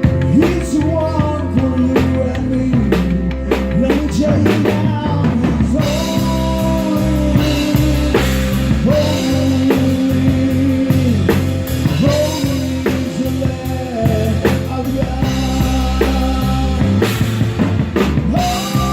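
Rock band playing: guitar, bass guitar and drum kit, with a steady drum beat and a singing voice among the gliding melody lines.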